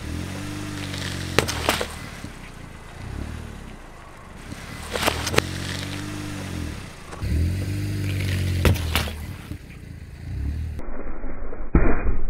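Background music: a short phrase of low swelling tones with a pair of sharp clicks, repeated three times. Near the end comes a sudden crack as a car tyre presses down on a whole watermelon.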